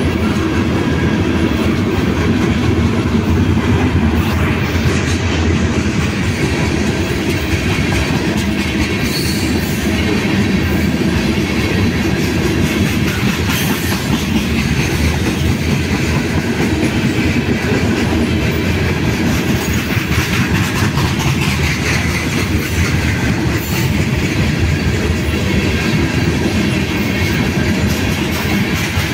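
CPKC freight train of tank cars rolling steadily past, close by, its wheels running over the rails.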